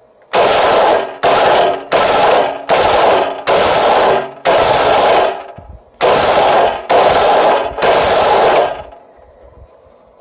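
Abrasive chop saw cutting in about nine short, loud bursts of harsh grinding noise, each starting abruptly and tailing off, with brief gaps between them.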